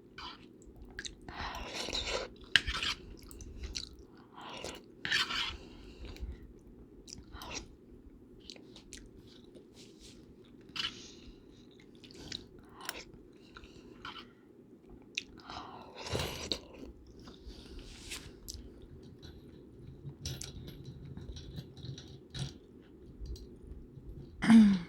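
Close-miked chewing and biting, the wet, irregular mouth sounds of someone eating with occasional crunches, over a steady low background noise.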